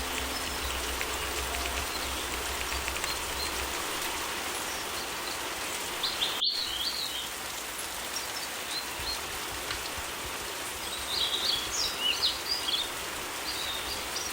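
Steady summer rain with small birds chirping: a short burst of chirps about six seconds in and a longer run of them near the end. The sound breaks off for a split second about six and a half seconds in, where the recording's loop is joined.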